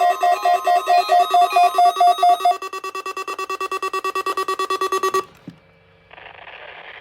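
Weather radio's electronic alert alarm beeping rapidly in a pulsing pattern, switching to a faster, different-pitched beep about two and a half seconds in and cutting off suddenly about five seconds in. A short burst of radio hiss follows near the end.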